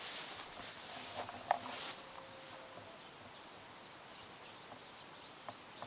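Insects in tropical vegetation, crickets or similar: a steady high-pitched whine with a regular pulsing chirp a little below it, repeating a few times a second. In the first couple of seconds there is some rustling, and a single sharp click comes about a second and a half in.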